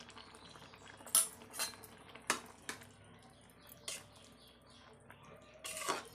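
A spatula knocking and scraping against a metal kadai while stirring a curry: a handful of short, irregular clinks, the loudest about a second in and near the end.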